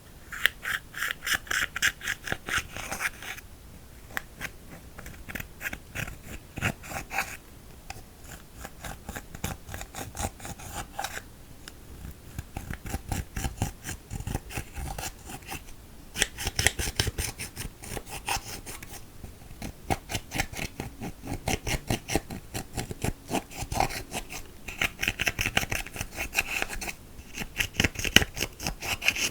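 Slime being kneaded and stretched by hand, giving rapid trains of small crackling clicks and pops from trapped air. The clicks come in runs of a few seconds with brief pauses between them.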